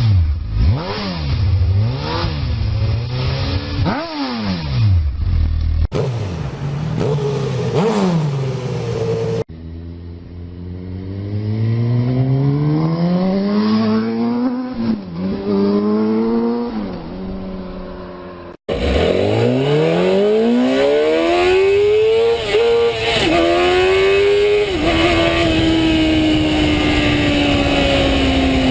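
A run of separate motorcycle engine clips, each revving hard with the pitch climbing and dropping. The last clip accelerates with short dips in pitch as it shifts gears, then its pitch falls slowly.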